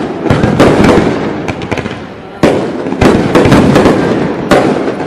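Fireworks display: a dense run of loud bangs and crackling bursts, several a second, with fresh volleys about a second in and again about two and a half seconds in.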